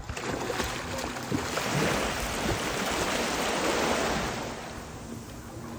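Sea surf washing in: a rush of wave noise that builds over a couple of seconds and fades near the end.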